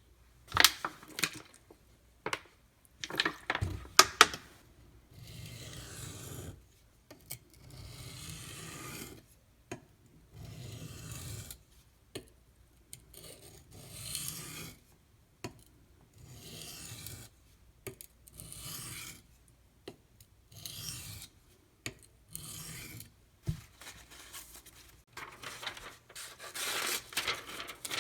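Knife edge drawn in long, even strokes across a coarse 150-grit oil stone, about one stroke every two seconds, with a few sharp clicks of the blade against the stone in the first few seconds. Near the end the strokes come faster and louder.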